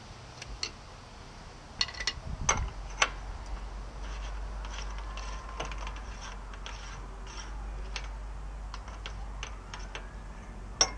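Scattered clicks and clinks of metal front-hub parts and hand tools being handled, with a cluster of sharper knocks about two seconds in and one more at the end. A faint siren begins to rise and fall near the end.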